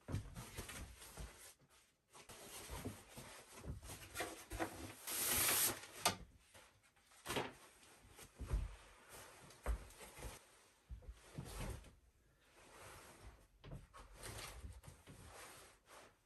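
Nylon rustling and swishing as a sleeping bag is pulled out of its stuff sack and spread on a wooden bunk, with a few dull knocks. The loudest is a swoosh of about a second, about five seconds in.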